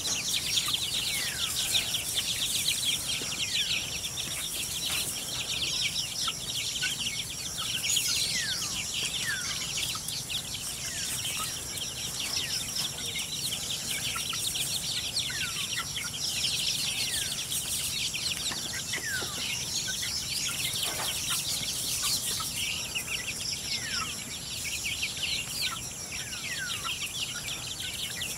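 A flock of young chickens peeping and chirping without a break: many short, falling peeps overlapping, over a steady high-pitched ringing.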